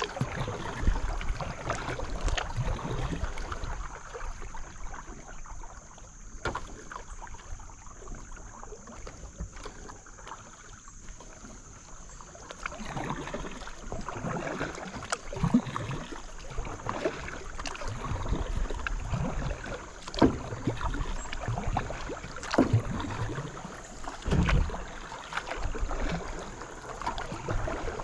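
Paddle strokes dipping and pulling through creek water, with splashes and drips off the blade coming at an uneven pace. The strokes grow quieter for several seconds in the middle and pick up again in the second half.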